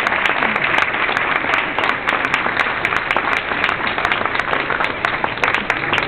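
Audience applauding: many people clapping at once, steady throughout.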